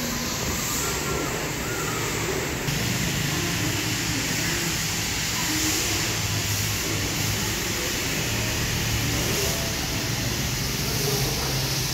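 Steady low mechanical hum under a broad hiss, the background din of car wash machinery; the hiss gets a little louder about three seconds in, and faint distant voices come through.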